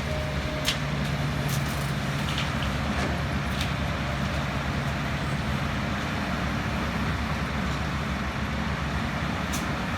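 Heavy diesel machinery running steadily with a low hum, with a few short sharp clanks now and then.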